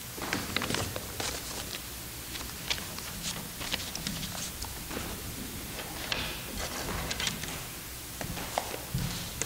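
Papers and a book being handled on a wooden lectern: scattered rustles of paper with small taps and knocks.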